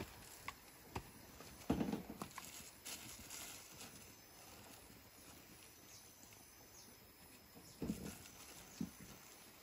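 Scattered faint knocks and clacks of objects being handled and set down on rock, with a louder cluster about two seconds in and another near eight seconds, and some light rustling of a plastic bag.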